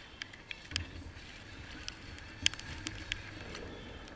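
Sharp, irregular clicks and knocks from gear being handled on a plastic fishing kayak, the loudest about halfway through, over a steady wash of choppy water and wind.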